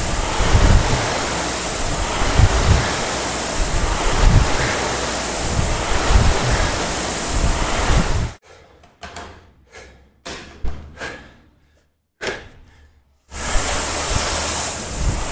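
Concept2 rowing machine's air flywheel whirring, surging with each drive stroke about every two seconds. About eight seconds in the whir drops away for roughly five seconds, leaving only faint knocks, then it comes back.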